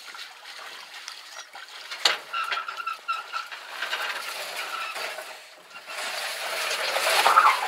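A large box being lifted and dragged across the metal boat: a knock about two seconds in, a short run of squeaks, then loud rough scraping near the end.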